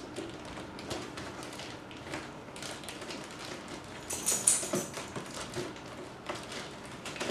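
Plastic liner rustling and crinkling as it is pushed down into a cardboard box and folded over the edges, with a louder crinkle about four seconds in.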